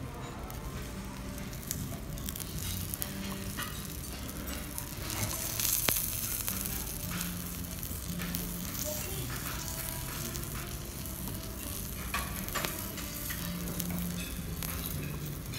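Masala omelette sizzling in a small frying pan, with a wooden spatula scraping and tapping against the pan as the omelette is folded. The sizzle grows louder about five seconds in, with a sharp tap near six seconds.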